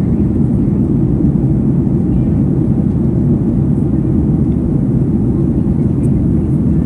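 Steady, even drone of a Boeing 737 MAX 9's CFM LEAP-1B turbofan engines and rushing airflow in flight, heard inside the economy cabin from a window seat behind the wing.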